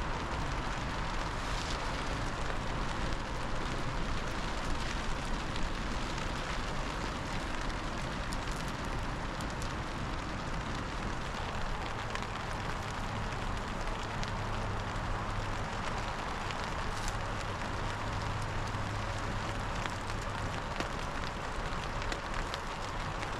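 Steady patter of rain falling on the ground around the camp, with scattered small clicks and crackles.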